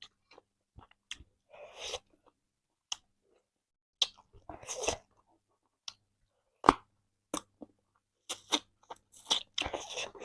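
Close-up eating sounds of chicken being chewed and crunched: irregular bites and crackly chews, with a sharp crunch about two-thirds of the way through and quicker chewing near the end.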